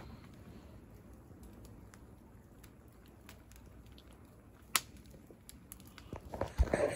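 Small split-wood campfire crackling, with scattered irregular snaps and one sharper pop about two-thirds of the way through. A low thump near the end.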